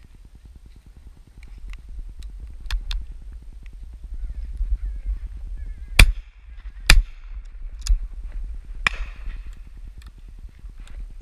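Two shots from a 20-bore over-and-under shotgun, a Beretta Silver Pigeon, about a second apart near the middle, each firing both barrels in turn; several fainter shots come before and after, over a steady low rumble.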